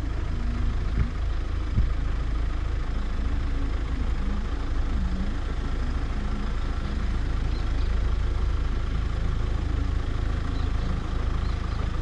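Mahindra Thar engine running at low, wavering revs as the 4x4 crawls up a loose sand slope in four-wheel-drive low, under a steady deep rumble.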